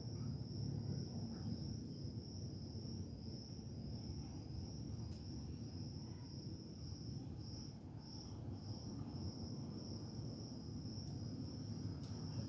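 High, evenly pulsing chirping of insects, over a low steady background rumble.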